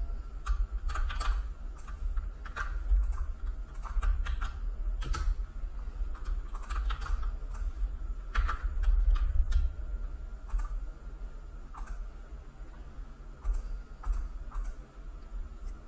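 Computer keyboard keys clicking in irregular bursts of typing, busier in the first half and sparser later, over a steady low hum.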